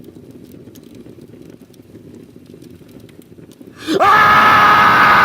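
A faint low rumble, then about four seconds in a man breaks into a loud, held scream of pain.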